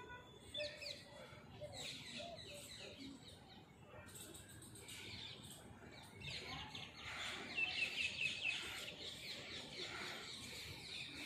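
Small birds chirping: many short, overlapping calls that grow denser and louder about six seconds in.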